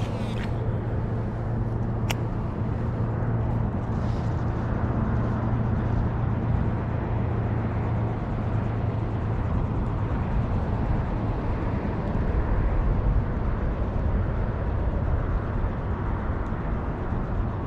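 A steady low, motor-like hum under an even wash of noise, with one sharp click about two seconds in.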